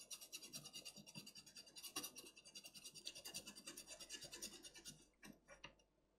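Toothbrush bristles scrubbing isopropyl alcohol over a circuit board, cleaning the freshly soldered connector area. The scratching is faint, with quick repeated back-and-forth strokes that stop about five seconds in and leave a few light ticks.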